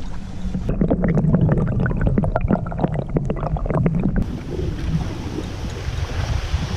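Canoe paddle working through the water: a quick run of small splashes and drips for the first few seconds, then a steady wash of wind and water.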